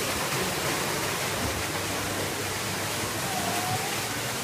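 Steady rushing hiss of running water, even and unbroken.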